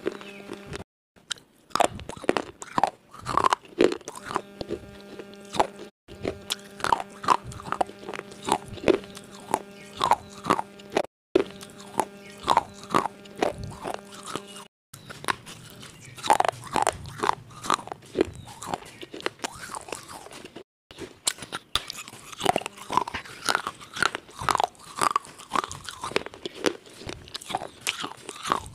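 Close-miked biting and chewing of broken pieces of a fired clay cup: a dense run of sharp, dry crunches, about one or two a second. A steady hum sits under the first half and stops about halfway through.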